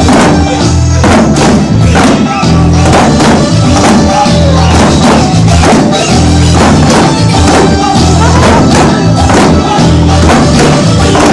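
Eisa drum dance: small paranku hand drums and a shime-daiko struck with sticks in regular beats, over loud Okinawan folk-song music.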